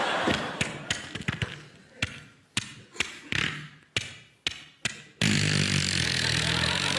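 A series of sharp knocks, each dying away quickly, then a loud, steady droning noise that starts suddenly about five seconds in.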